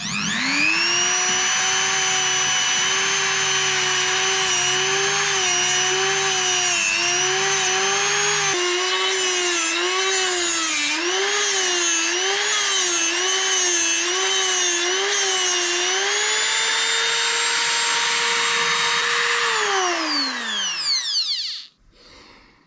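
Perfangle tungsten sharpener's electric motor spinning its diamond grinding wheel: it spins up, then runs with a steady high whine. For several seconds in the middle its pitch dips and recovers over and over while the tungsten electrode is ground to a point against the wheel. Then the pitch rises, and the motor is switched off and winds down, stopping near the end.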